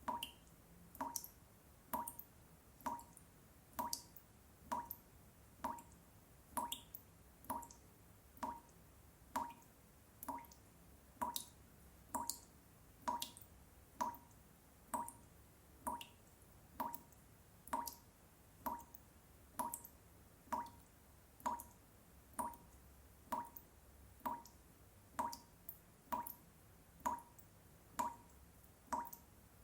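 Water dripping from a tap, one drop a little under every second in a steady, even rhythm, each drop a short plink.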